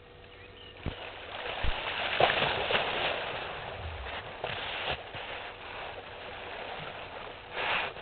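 Water splashing and churning as two hippos play together in a waterhole, loudest two to three seconds in. There are two dull thumps about a second in, and a short burst of splashing near the end.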